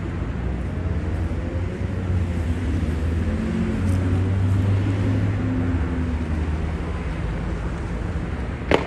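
Steady low hum and road noise of a car rolling slowly, heard from inside the car. Near the end comes one sharp bang, which the person filming takes for a gunshot.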